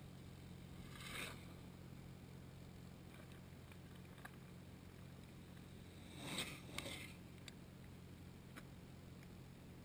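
Mountain bikes passing close on a dirt and gravel track: two brief whooshes of tyres, about a second in and about six seconds in, over a faint low hum, with a few light ticks.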